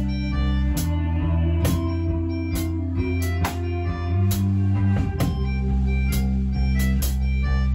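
Rock band playing live, an instrumental passage without singing: guitar over sustained low notes that change about once a second, with drum hits keeping a steady beat.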